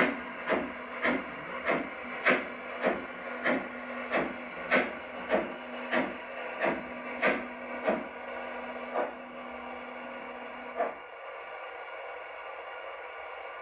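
LGB model steam locomotive's sound unit chuffing at about one and a half to two beats a second over a steady hum. The chuffs slow and stop about eleven seconds in, and the hum ends with them, as the locomotive comes to a stand. A faint steady hiss remains.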